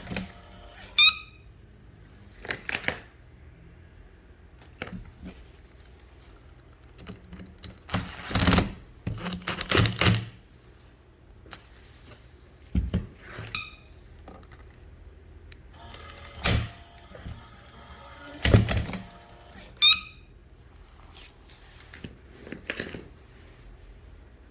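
Intermittent clicks, knocks and clatter of hard parts being handled while a remote-controlled parking barrier is worked on, with a short high beep-like chirp about a second in and again near the end.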